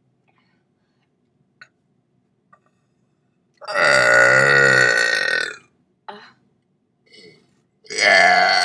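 A long, loud belch of about two seconds, about three and a half seconds in, wavering in pitch. A second belch starts near the end.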